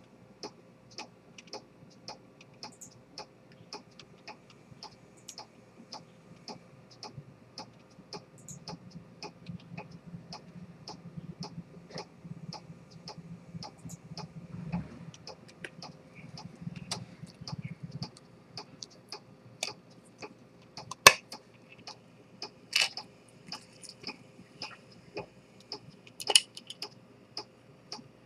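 Chronometer pocket watch with an Earnshaw-type spring detent escapement ticking steadily, a quick even run of light ticks. A few louder clicks come in the last third as the watch is handled.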